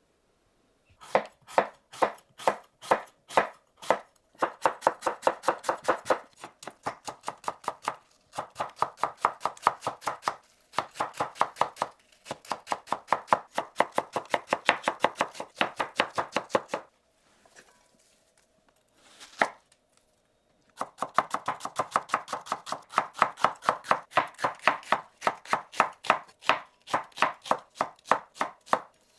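A kitchen knife chopping vegetables on a cutting board in quick, even strokes. It comes in several runs with short pauses between them, and a longer pause past the middle broken by a single strike.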